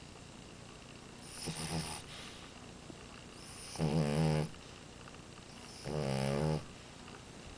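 French bulldog snoring: three buzzy snores about two seconds apart, the first one fainter.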